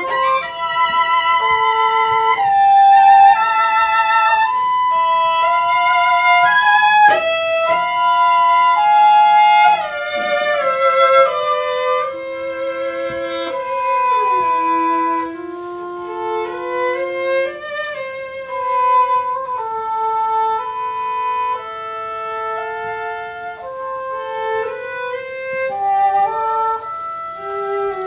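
Cello and English horn playing a contemporary classical duo: two lines of held notes with vibrato, moving stepwise against each other, with a few sliding pitch changes.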